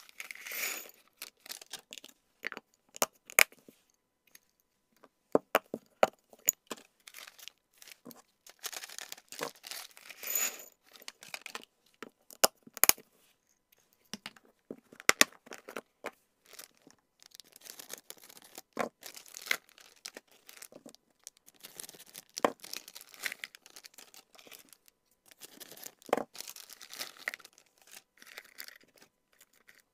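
Plastic treat bags and small sachets crinkling and rustling in the hands, broken by many sharp clicks and taps as hamster treats are tipped into a small glass dish and packets are packed into a clear plastic storage box.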